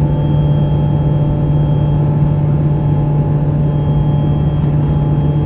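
Steady cabin noise of an Embraer Legacy 500 business jet in flight: a constant low drone from its twin Honeywell HTF7500E turbofan engines and the airflow, with a few faint steady whines above it.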